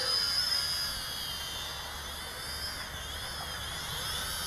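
SJ R/C X300-2C quadcopter's propellers and motors whining as it lifts off and flies, a high-pitched whine whose pitch wavers as the motors adjust.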